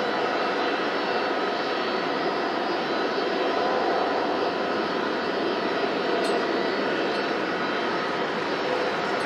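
Boeing 767-300's twin jet engines at takeoff thrust through the takeoff roll, rotation and liftoff: a steady rushing noise with thin steady whining tones on top.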